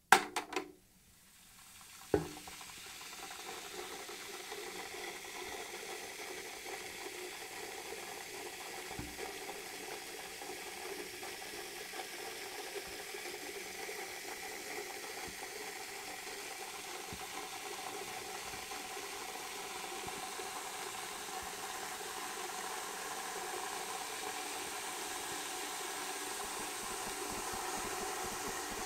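Liquid splashes briefly as concentrated sodium hydroxide solution is poured onto crumpled aluminium foil, with a sharp knock about two seconds in. Then the foil fizzes and bubbles steadily as it dissolves in the lye, giving off hydrogen, and the hiss slowly grows louder.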